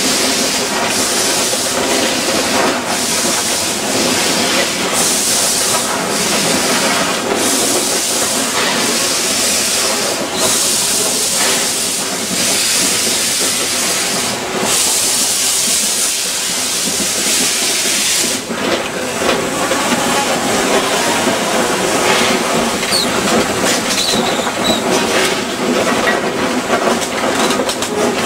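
2-6-0 steam locomotive running slowly, heard from its cab. Steam hisses in pulses about a second long over the sound of the engine moving along the track. The hissing stops about two-thirds of the way in, leaving the running sound of the locomotive on the rails.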